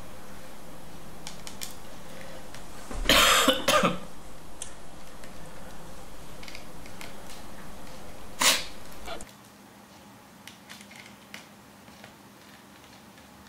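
A person coughs, a few quick bursts about three seconds in and another short one near the ninth second. In between there are faint clicks of a small screwdriver working on laptop motherboard screws.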